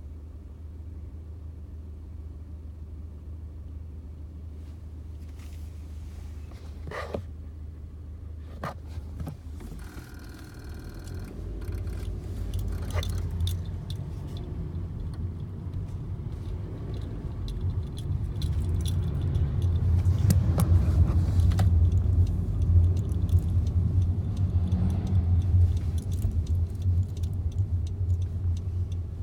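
Inside the cabin of a 10th-generation Honda Civic on the move: a low road and engine rumble that grows louder in the second half, with irregular small clicks and rattles over it. The rattles are the unexplained noise the owner hears from the driver's side of the car.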